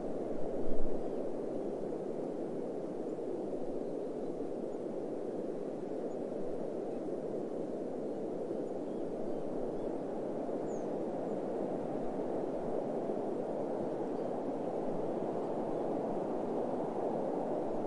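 Steady, low rushing of wind, with a brief deep thump just under a second in.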